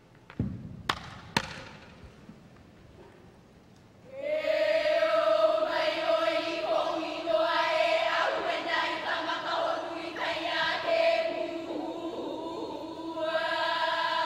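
A low thump and two sharp knocks near the start. Then, from about four seconds in, a group of women's voices chanting a Hawaiian mele inoa (name chant) in unison, with long held notes.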